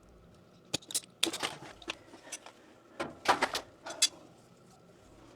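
Handling noises from hands-on work: a few sharp clicks and knocks, with two short rustling, scraping stretches, the longer one about three seconds in.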